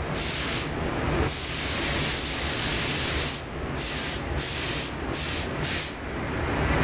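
Compressed-air paint spray gun hissing in bursts as the trigger is pulled and released: one long spray of about two seconds, then a run of short ones, over a steady low rumble.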